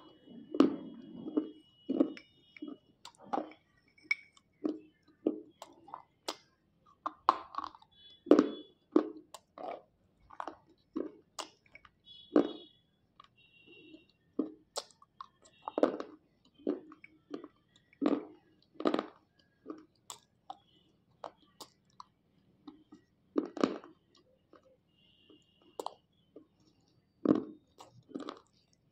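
Slate pencils dipped in wet clay paste being bitten and chewed: a run of irregular sharp crunches, several a few seconds apart, with softer chewing between.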